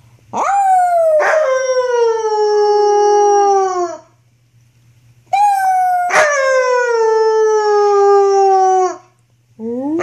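Young wolfdog (wolf–dog hybrid) howling: two long howls of about four seconds each, each jumping up in pitch at the start and then sliding slowly down, with a short rising call beginning near the end.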